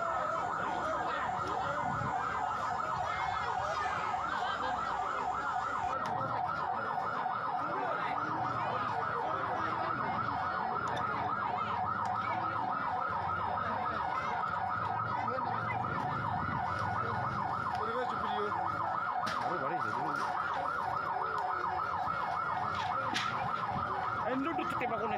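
Electronic emergency-vehicle siren sounding a continuous fast yelp, its pitch swinging up and down several times a second, with a crowd's voices faintly underneath.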